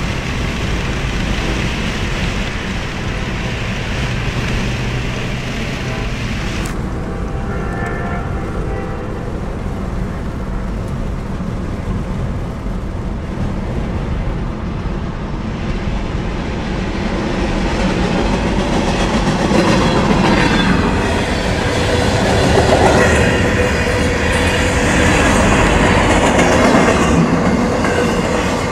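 Norfolk Southern local freight train moving on the rails, with a steady low rumble and wheels clacking. It grows louder and rattlier in the second half.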